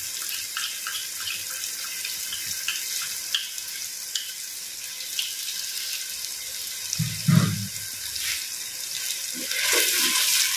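Onion-tomato masala with ginger-garlic paste frying in oil in a clay pot: a steady sizzle with small crackles and pops. There is a dull knock about seven seconds in, and near the end a spatula stirs through the masala, louder.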